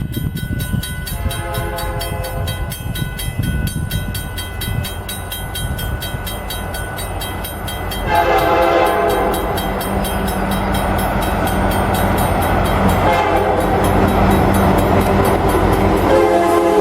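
Locomotive horn sounding for a grade crossing over the rumble of the approaching train: a fainter blast about a second in, then two long, louder blasts from about eight seconds in. The crossing signal's bell rings throughout.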